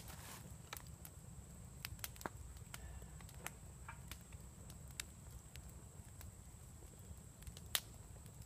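Wood campfire crackling: irregular sharp pops and snaps from the burning wood, the loudest near the end.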